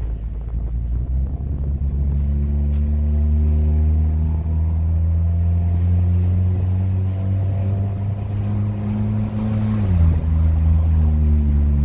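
Hyundai Tucson 2.0 four-cylinder engine running through an exhaust with the rear silencer removed, giving a loud, deep drone. The pitch rises slowly under acceleration, then drops sharply about ten seconds in, as with a gear change or lifting off, and holds steady after that.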